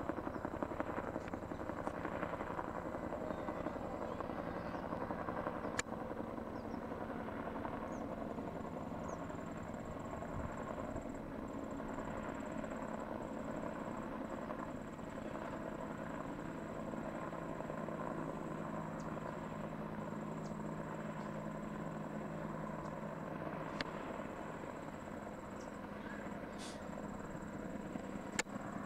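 Helicopter flying overhead, a steady drone of engine and rotor with a low hum that eases a little near the end.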